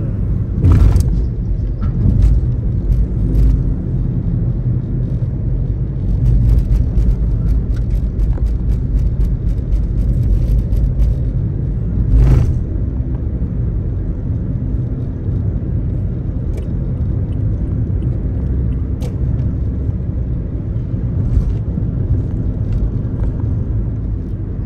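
Steady low road and engine rumble heard inside a moving car, with a few brief knocks and clicks, the loudest about a second in and again about halfway through.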